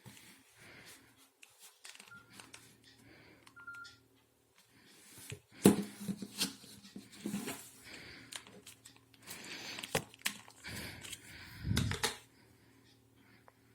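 A Nokia mobile phone being handled and operated: a few short keypad beeps, then a run of plastic clicks, taps and rubbing, with a sharp knock about halfway through and a dull thump near the end.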